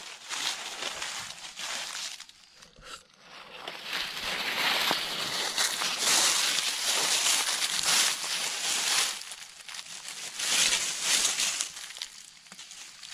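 Footsteps crunching and rustling through dry fallen leaves, in uneven surges that are loudest through the middle of the stretch and again briefly near the end.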